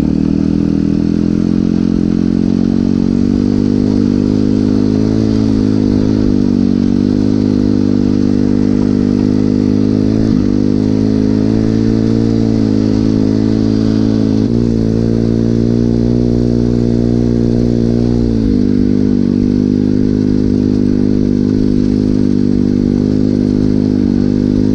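Regulmoto Seven Medalist 150E pit bike's single-cylinder four-stroke engine running steadily while riding through snow. Its pitch dips briefly and comes back up about ten seconds in, and again around fourteen and eighteen seconds in.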